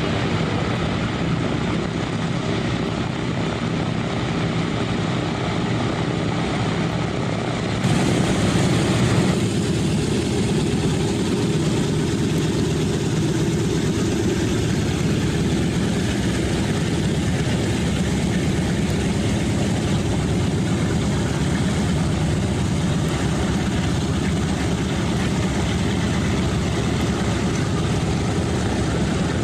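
The radial engines of a Boeing B-17G Flying Fortress running at low taxi power: a steady, deep propeller drone. The sound changes abruptly about eight seconds in, getting briefly louder, and again a second or so later.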